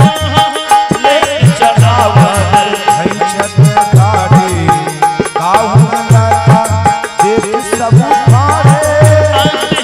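Devotional bhajan accompaniment: a harmonium holds the tune over a steady dholak rhythm, with the drum's bass head sliding up in pitch on many strokes. Small manjira hand cymbals strike in time with the beat.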